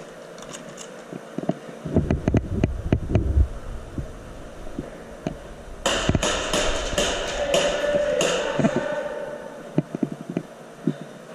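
Thumps, knocks and rattles of a player's movement and gear picked up close on a body-worn camera: a run of deep thumps about two seconds in, then a stretch of hiss with many sharp clicks from about the middle.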